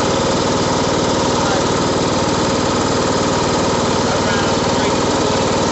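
Riding lawn mower's small engine idling steadily, with an even, rapid firing pulse.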